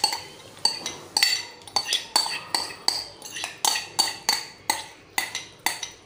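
Rapid metal clinking of a spoon against a bowl and a steel pan, about three clinks a second, each with a short ring, as gram-flour batter is scraped into hot sugar syrup.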